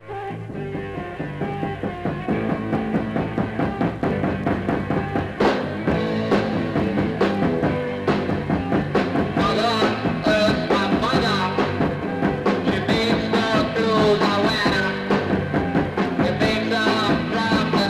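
Rock music with a steady drum beat and what may be a singing voice: an intro music track.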